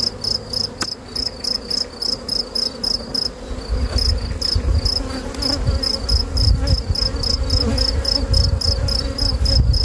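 A cricket chirping in a steady rhythm of several high chirps a second, over the buzzing of honeybees from an opened hive. From about four seconds in, a low rumble joins.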